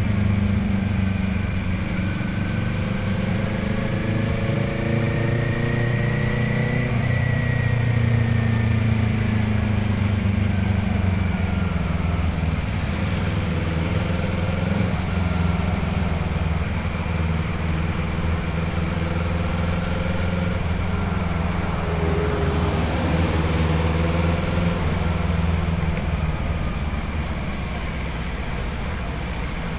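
Motorcycle engine and exhaust while riding. The engine pitch climbs steadily for about the first seven seconds, then eases off, and afterwards rises and falls gently with the throttle.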